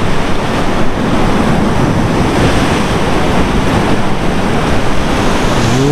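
Sea surf washing in with wind buffeting the microphone: a loud, steady rush.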